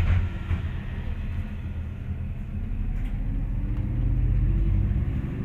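MAZ-203 city bus heard from inside the passenger cabin: low engine and road rumble, with a knock right at the start. From about two seconds in, the engine note rises and grows louder as the bus picks up speed.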